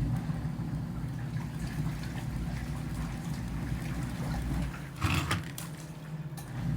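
Portable washing machine running on its wash cycle: a steady low motor hum with the agitator churning water and clothes, and a louder slosh about five seconds in.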